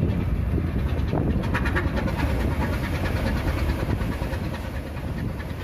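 Heavy cable-handling machinery running with a steady low rumble, with a spell of rapid rattling clicks about a second and a half in.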